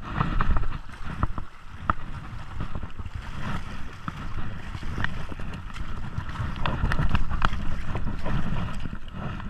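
Creek water splashing close by as a fish thrashes at the surface, with wind buffeting the microphone as a low rumble under many short crackling splashes.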